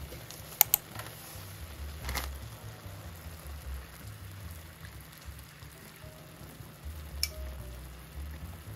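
A few sharp clicks and taps: a close pair in the first second and single ones about two and seven seconds in, over faint background music.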